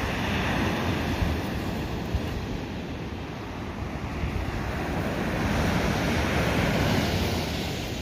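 Sea surf washing onto the beach, a surge building in the second half and easing off near the end, with wind buffeting the microphone.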